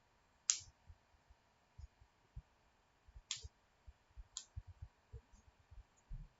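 Faint desk handling sounds: three sharp clicks, the loudest about half a second in and two more close together past the middle, over scattered soft low knocks.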